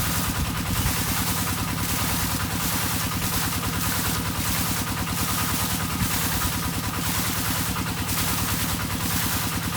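Engine-driven water pump running steadily, with a chorus of frogs calling that pulses about twice a second.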